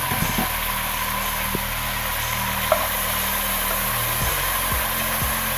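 Onions and peppers sizzling in a hot pot over a steady hum, with a spoon stirring them; near the end the strokes come as low knocks about twice a second.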